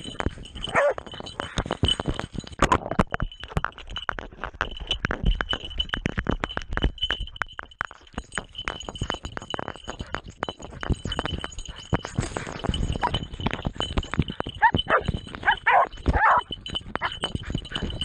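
Hunting hound crashing through brush and leaf litter in pursuit of a wild boar, heard from a camera on the dog itself: dense, irregular rustling, snapping and knocking, with a few barks near the end.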